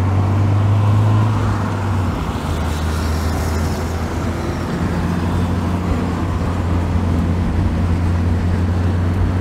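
Mitsubishi Lancer Evolution III's turbocharged 4G63 four-cylinder heard from inside the cabin while cruising. A steady low engine drone runs under tyre and road noise, and the drone dips briefly about two seconds in.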